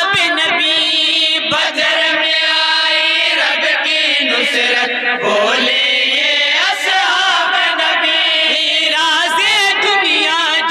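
Men's voices chanting a naat, an Urdu devotional poem in praise of the Prophet, with long held notes and a wavering, ornamented melody, amplified through a microphone and loudspeakers.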